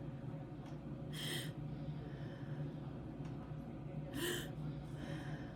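A person sharply inhaling through the mouth as if gasping for air, twice, about three seconds apart: deliberate gasps, each after an exhale, done as a respiration task for a voice recording.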